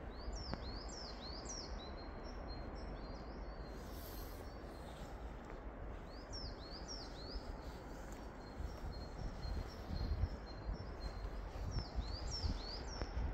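A small songbird in the conifer woods singing a short phrase of high, downward-sweeping notes, repeated three times, over a steady background rush. Low rumbling grows stronger in the second half.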